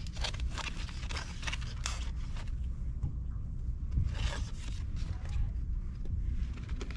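Short dry scratching and rustling strokes from hands working on parts: a quick run of them in the first couple of seconds and another about four seconds in, over a low steady rumble.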